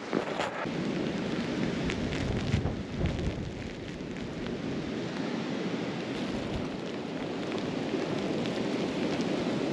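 Blizzard wind rushing and buffeting the microphone in a steady, rumbling noise.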